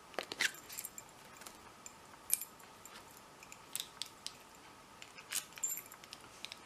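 Small metal key and padlock being handled: scattered light clicks and brief metallic jingles as the key is worked in the PACLOCK padlock.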